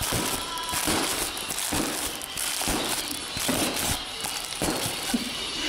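Plastic bubble wrap crinkling and crackling as it is handled and jabbed with a screwdriver, with a run of sharp snaps from bubbles popping.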